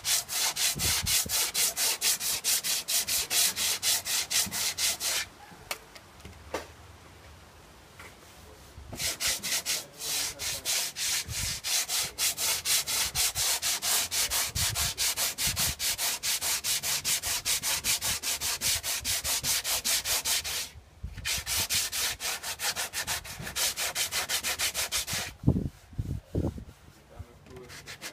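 Hand sanding of a car's painted fender with sandpaper on a sanding block: rapid, even back-and-forth scratching strokes. The strokes stop for a few seconds in the first half and again near the end.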